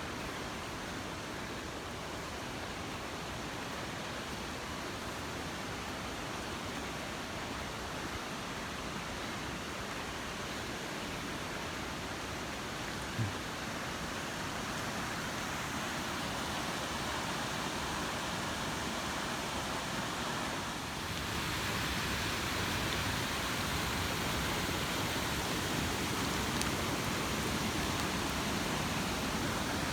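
Steady rushing of a mountain stream, growing louder about two-thirds of the way through. A single brief knock near the middle.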